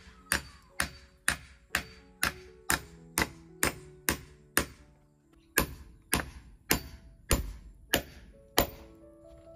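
Repeated sharp blows of a hand tool, about two a second, with a pause of about a second just past the middle. Background music plays beneath.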